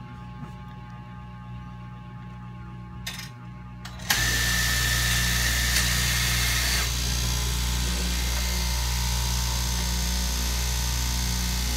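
Electric straight-knife cloth cutting machine switching up to full running about four seconds in, then running noisily and steadily with a strong low hum and a whirring hiss as its upright blade cuts through the stacked cloth layers. A thin high whine rides on it for the first few seconds of running, then drops away.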